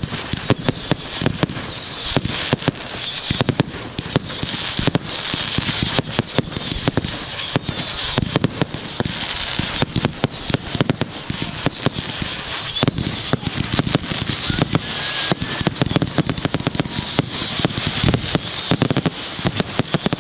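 Aerial fireworks display: a dense, continuous run of bangs and crackling bursts, with a few high whistles that fall in pitch.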